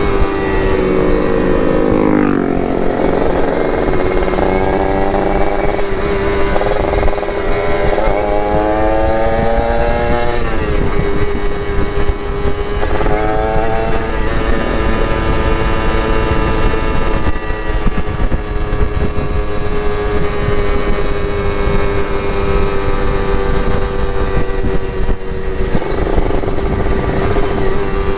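Two-stroke motorcycle engine under way: the revs climb and drop several times in the first half, as through gear changes, then settle into a steady cruising note.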